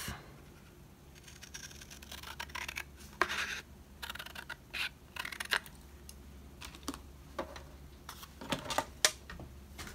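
Scissors cutting along the edge of a piece of decorative cardstock: a run of short, crisp snips and paper crackles, then the cut paper being handled near the end.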